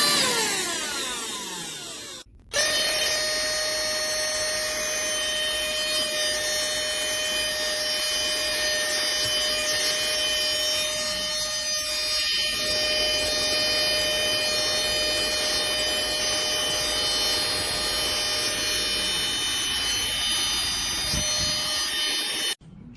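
Nikocreos cordless handheld mini vacuum's small motor running with a steady high whine. It winds down over the first two seconds. After a short break it starts again at a steady pitch and stops abruptly near the end.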